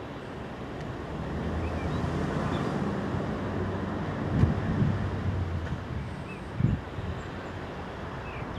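PKP Class EP07 electric locomotive hauling passenger coaches slowly towards the microphone: a steady low hum and rumble that grows louder over the first two seconds. Wind on the microphone adds a few low thumps, about halfway through and again later.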